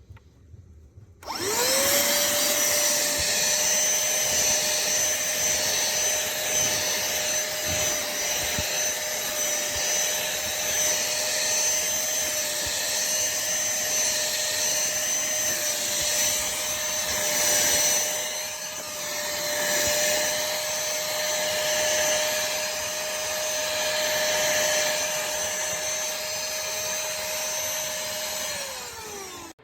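Pemacom cordless handheld vacuum cleaner switched on about a second in, its motor spinning up to a steady high whine as it vacuums up dirt. It is switched off near the end and the whine falls away as the motor winds down.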